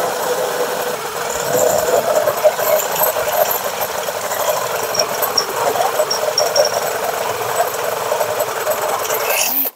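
Electric drill running under load, boring a hole through the steel frame of a welded stand: a steady motor drone that cuts off abruptly near the end.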